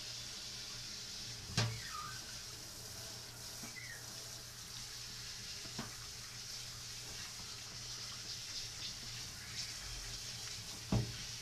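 Tap water running steadily during a puppy's bath, with two sharp knocks, one about one and a half seconds in and one near the end.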